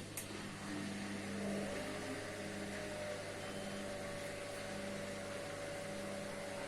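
Candy SMART washing machine running with a steady electric motor hum and a higher whine that settles to one even pitch.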